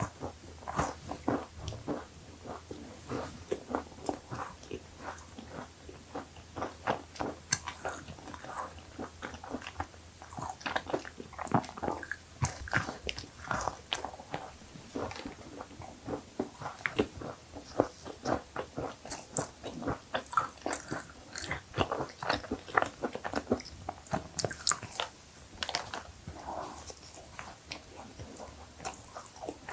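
Close-miked biting and chewing of cookies, with many short crisp crackles in quick, irregular succession.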